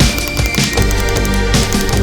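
Background music with a heavy beat and deep bass.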